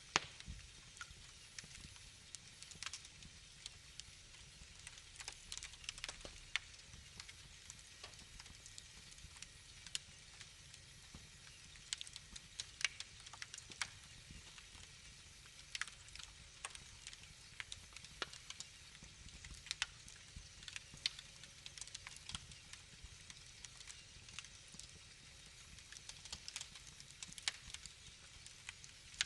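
Wood fire burning in a fireplace, crackling with irregular sharp pops over a faint steady low rumble.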